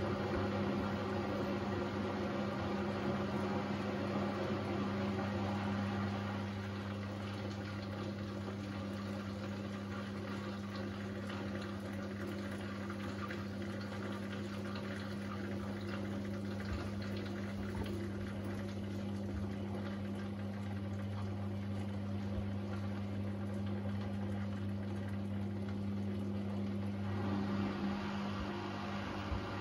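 Beko WDR7543121S washer-dryer mid-wash: the drum tumbling laundry through sudsy water, sloshing over a steady low electrical hum that stops near the end.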